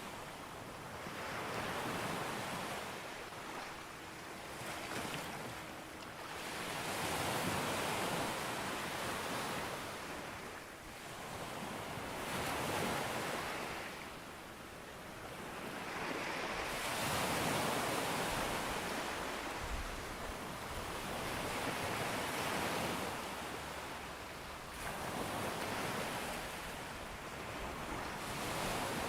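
Sea waves breaking on a beach, the wash swelling and falling back every three to four seconds.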